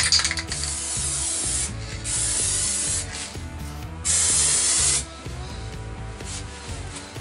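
Paint spraying in short passes: three bursts of hiss, each about a second long, with short gaps between them.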